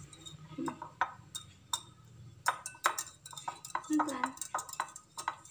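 Eggs being beaten by hand in a glass bowl: a utensil clinks and taps irregularly and quickly against the glass.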